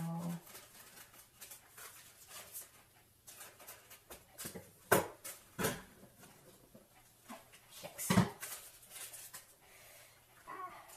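Kitchen handling noise: a spatula scraping and clicking against a mixing bowl, with sharp knocks about five and eight seconds in, over a faint steady hum.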